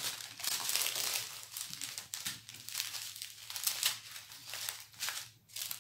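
Small clear plastic bags of diamond painting drills crinkling and rustling as they are handled, with many irregular small crackles.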